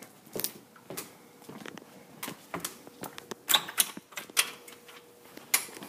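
A series of irregular sharp clicks and knocks, a dozen or so, over a faint steady hum.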